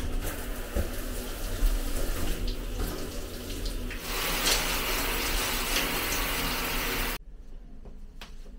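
Hand-held shower head spraying water, a steady rush that grows louder and brighter about four seconds in, then stops suddenly about seven seconds in.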